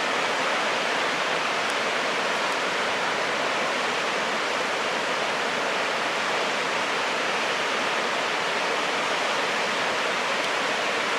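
Steady rushing of a creek, an even hiss of flowing water that does not rise or fall.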